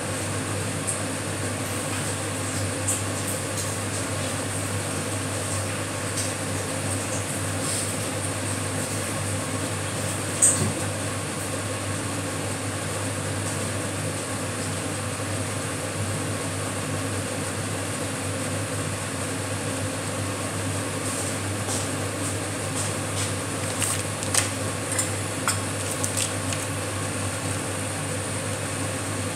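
Steady low machine hum, like a running fan or appliance, with a few light clicks and knocks; the sharpest knock comes about ten seconds in.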